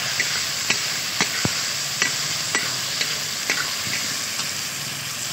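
Ginger, garlic and chilli paste sizzling in hot oil in a metal kadhai, with a metal spatula clicking and scraping against the pan about twice a second as it is stirred.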